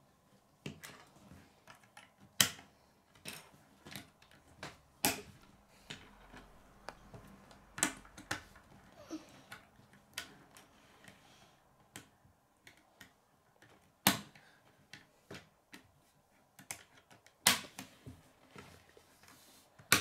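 Plastic K'nex rods and connectors clicking as they are snapped together, with pieces knocking on a wooden tabletop. The clicks are irregular and sharp, coming every second or so, with a few louder snaps.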